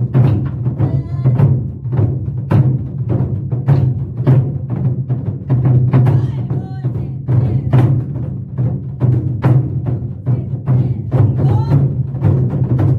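Korean drum ensemble playing Goguryeo-style buk drums: a dense, driving run of hard strikes with a deep boom under them.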